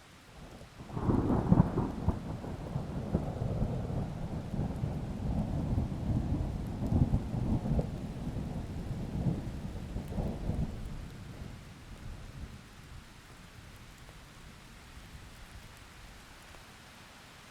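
A peal of thunder breaking about a second in, rumbling with repeated cracks for about ten seconds before fading away, over a faint steady hiss of rain.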